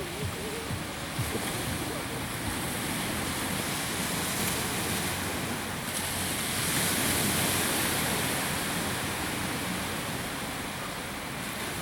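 Ocean surf washing in steadily on a sandy beach, swelling louder about seven seconds in, with wind buffeting the microphone.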